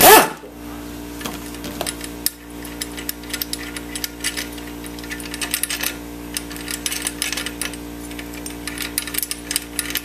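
A power driver with a socket whirs up and down in a short, loud burst as it backs out a cylinder-head bolt on a Briggs & Stratton 6 HP engine. Then loosened steel head bolts click and clink as they are handled by hand.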